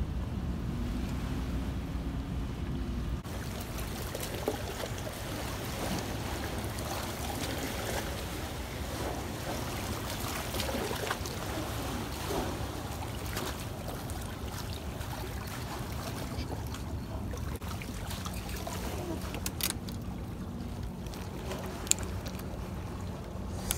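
Harbour water lapping and sloshing among the rocks of a stone seawall, with wind on the microphone. A few sharp clicks come near the end.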